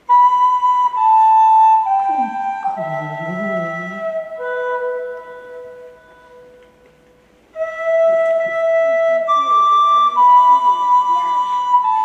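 Flute playing a slow melody of held notes that step downward, in two phrases with a pause of about a second and a half between them.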